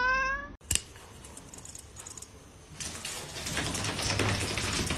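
A brief rising synth glide cuts off with a click, then after a quiet stretch a dense patter of light clicks and scratching: a kitten's claws scrabbling on a tile floor as it grapples with a handheld object.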